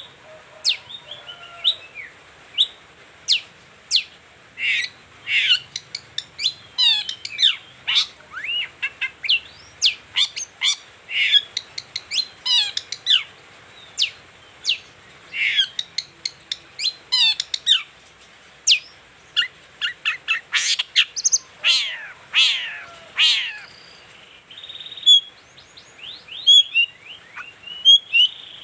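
Long-tailed shrike (cendet) singing a fast, varied song of sharp chirps and quick down-slurred whistles, with a short pause near the end.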